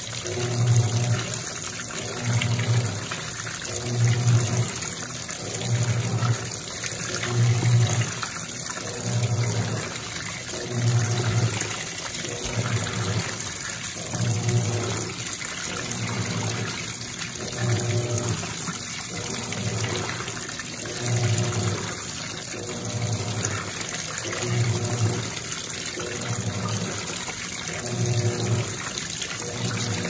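Electrolux Perfect Wash Turbo LT12F top-loading washing machine in its rinse: water pours steadily into the tub from the inlet while the agitator motor hums in strokes about once a second, churning the wet clothes.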